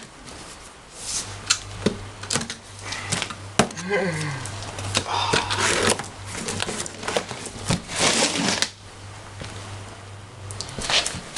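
Handling noise from unboxing a radio-controlled crawler truck and its packaging: irregular clicks, knocks and short rustles, with a steady low hum in the background for most of it.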